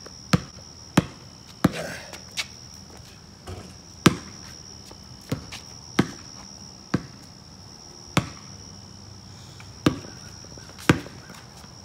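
A basketball bouncing on a concrete driveway: about a dozen sharp, separate bounces at an uneven pace, roughly one a second.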